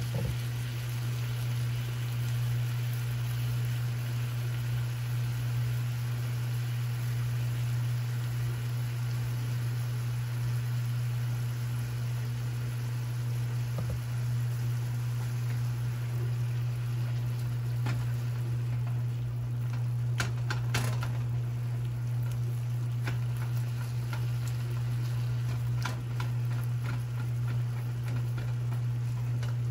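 Ground beef frying in a skillet, a steady sizzle under a loud, steady low hum. A few light clicks come past the middle.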